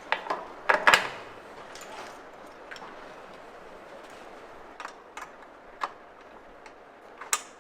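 Small spanner clicking and knocking against the kickstand's screws and metal bracket while the screws are worked, in irregular sharp clinks. The clinks cluster about a second in, with a few more scattered later.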